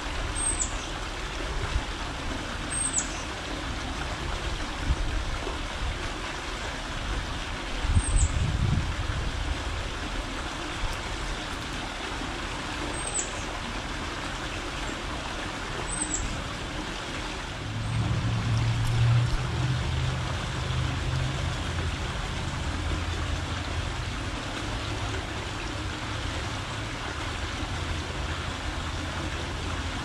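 Steady outdoor background hiss with the low rumble of distant road traffic. A steady low hum sets in a little past halfway and holds.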